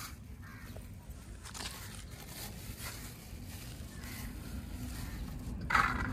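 Thin plastic bag crinkling and rustling in the hand as white grains are shaken out of it into a steel bowl, in a run of small irregular crackles. A brief, louder sound comes near the end.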